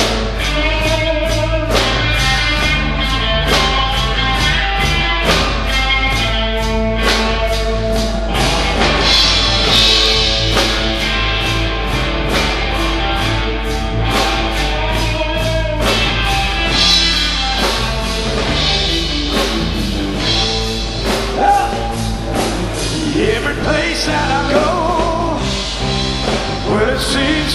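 Rock band playing live: electric guitars, bass and a drum kit keeping a steady beat, with a male singer.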